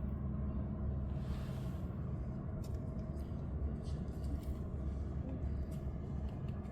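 Steady low mechanical hum with a constant pitch, like a running engine, and a few faint ticks over it.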